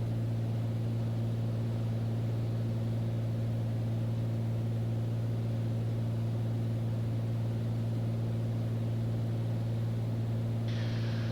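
Cabin drone of a Beechcraft Bonanza's piston engine and propeller in cruise, a steady low hum with even tones, as heard through the cockpit intercom.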